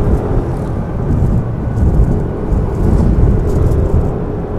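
Wind buffeting the microphone and road rumble while riding a Yamaha NMAX scooter, with a faint steady engine hum underneath.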